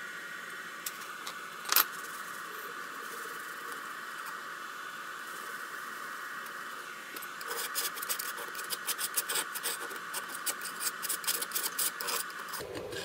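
Glue-stick residue being scrubbed and scraped off a 3D printer bed with a wet paper towel and a putty knife. A single knock comes about two seconds in, then from about halfway a rapid run of rubbing and scraping strokes, over a steady background hum.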